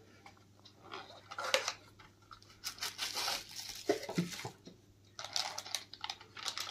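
A clear plastic accessory bag rustling and crinkling as it is handled, along with light knocks of cardboard packaging, in three irregular bursts.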